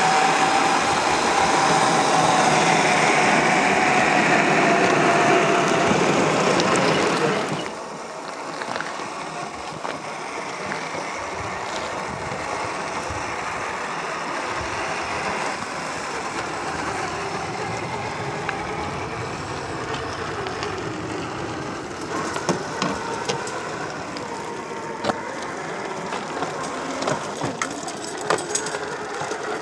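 Traxxas TRX4 RC crawler's electric motor and geared drivetrain whining under load, loud with a slightly falling tone for about the first seven seconds. It then drops to a quieter steady run, with scattered sharp clicks of tyres crawling over gravel and rock in the last several seconds.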